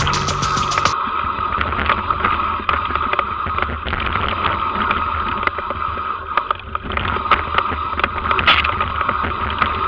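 Mountain bike descending a rough dirt and rock forest trail, heard on its onboard camera: the bike rattles and clatters with many sharp knocks as it runs over roots and stones. Background music cuts off about a second in.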